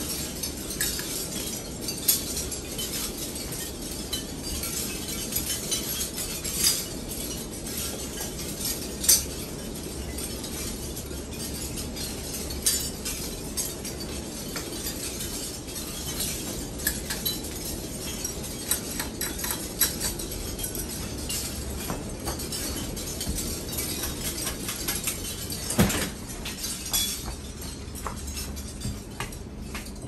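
52-inch Hunter Westminster ceiling fan running: a steady rush of air over a low motor hum, with light glassy clinks now and then from its light fixture, the sharpest about nine seconds in and near the end.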